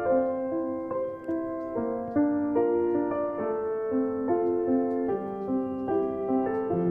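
Background piano music: a gentle melody of single notes changing about twice a second.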